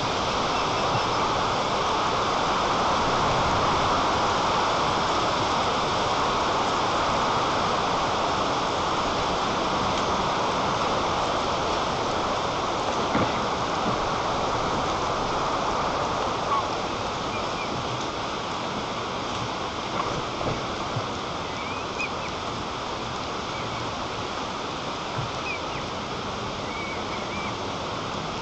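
Strong wind rushing through the treetop and over the nest-camera microphone, a steady rush that eases a little about halfway. A few short knocks and, near the end, faint high bird chirps.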